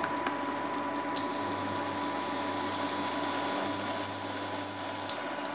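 Induction cooktop running: a steady fan hum with a thin, high whine, and a few faint clicks.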